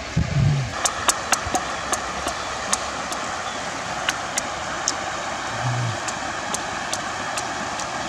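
A man eating fish with his fingers: sharp mouth clicks and smacks while chewing, with a short hummed "mm" at the start and another near six seconds. A steady rushing background noise comes in about a second in.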